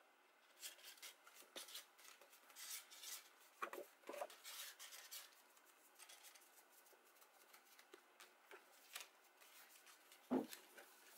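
Faint rustling and crinkling of stiff cardstock being handled, folded and pressed, with a soft thump near the end.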